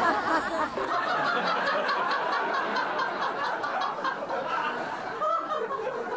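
Audience laughter: many people chuckling and laughing together at once, easing off slightly as it goes on.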